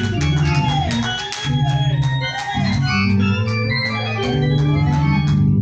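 Organ playing slow, sustained chords that change about once a second.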